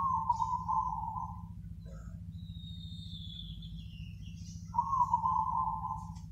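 Zebra dove (perkutut) cooing: two rippling phrases of quick coo notes, one at the start and one about five seconds in. Between them a thin falling whistle is heard, over a low steady hum.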